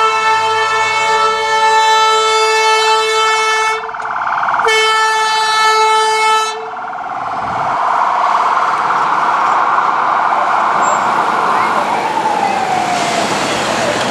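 Ambulance air horn sounding two long steady blasts, the first about four seconds and the second about two, followed by its siren wailing with traffic noise, the pitch sweeping down near the end.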